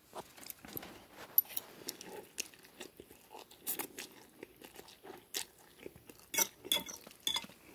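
A person chewing mouthfuls of instant noodles close to the microphone: a run of irregular short clicks.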